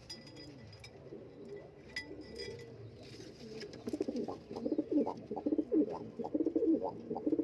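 Pigeons cooing: soft, low cooing at first, then from about four seconds in much louder, rapid, choppy cooing close by.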